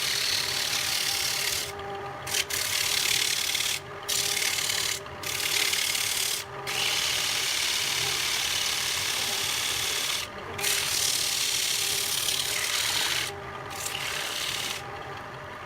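Abrasive rubbing on a wooden plate spinning on a wood lathe: an even hiss that breaks off briefly about six times as it lifts from the wood, over the steady hum of the lathe's motor. The hiss stops near the end, leaving the motor running.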